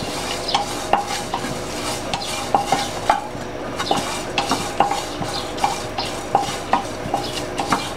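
Wooden spatula stirring and scraping dried red chilli pieces around a nonstick frying pan as they dry-roast until slightly crisp. The spatula knocks against the pan irregularly, about twice a second, over a steady hiss.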